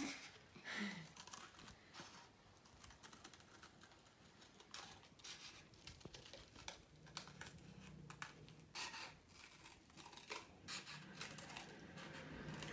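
Faint scissors cutting thin cardboard: a scatter of crisp snips and clicks with light rustling of the card.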